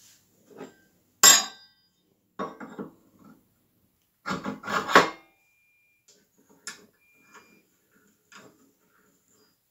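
Hard parts, metal and wood, knocked and set down while handling the pieces of a small wood lathe: a sharp clank about a second in, rattling clatters near two and a half seconds and again around four and a half to five seconds, then a few light clicks.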